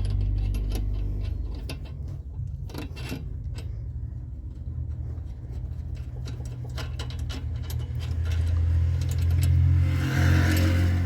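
Scattered metallic clicks and knocks of a spanner and Allen key working the self-locking nut off a stabilizer link's top stud, over a steady low hum.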